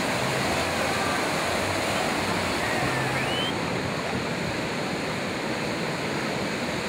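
Ocean surf breaking and washing through shallow water: a steady rushing noise of waves and foam. A faint short rising tone comes about three seconds in.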